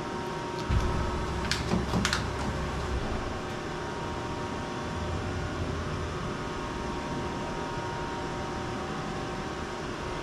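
CNC mill's axis drives moving the table during zero-return homing: a low drone starting about a second in and stopping near three seconds, then a fainter one a few seconds later, with two sharp clicks about half a second apart early on. A steady hum of the machine's cooling fans runs underneath.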